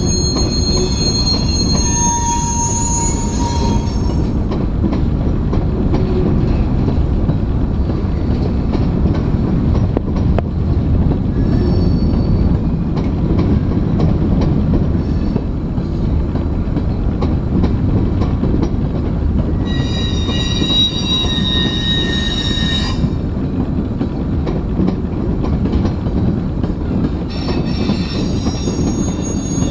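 Freight train cars, covered hoppers and tank cars, rolling past with a steady low rumble of wheels on rail. High-pitched wheel squeal comes in three spells: at the start, about two-thirds of the way in, and near the end.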